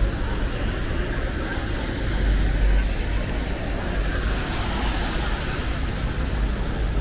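Busy city street at night: steady traffic noise from passing vehicles with tyre hiss on wet road and a low rumble. One vehicle comes louder about two to three seconds in.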